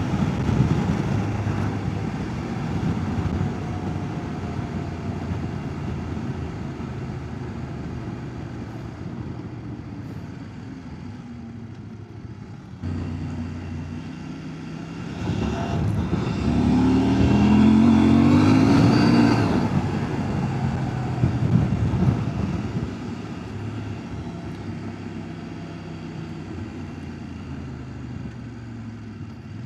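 CF Moto 800 MT-X's parallel-twin engine running on the move. About halfway through it is opened up and its pitch climbs as it accelerates, the loudest part, then it settles back to a steadier run.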